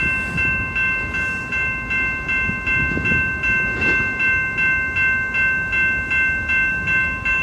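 Railroad crossing warning bell ringing steadily at about three rings a second while the crossing signals are active.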